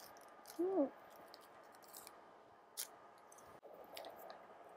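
A woman's short closed-mouth "mm" about a second in, rising then falling in pitch, followed by faint mouth clicks from chewing a light, crisp cream-puff-like snack.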